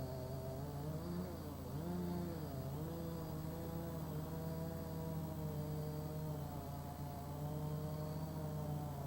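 A motor's steady hum, its pitch wavering slowly up and down.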